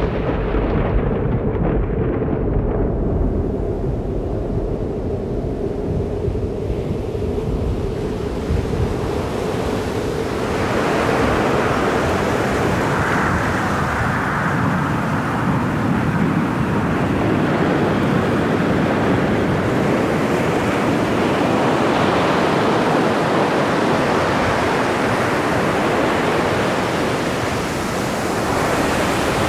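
Stormy sea: heavy surf and wind. A low rumble with a steady droning tone at first, then about ten seconds in a dense rush of breaking waves and wind swells up and holds.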